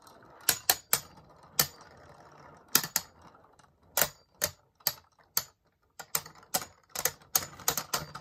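Two Beyblade Burst spinning tops in a plastic stadium, clacking sharply as they strike each other and the stadium, with a faint whir of spinning between hits. The hits come a few at a time at first, then grow quicker and closer together after about six seconds as the tops lock together.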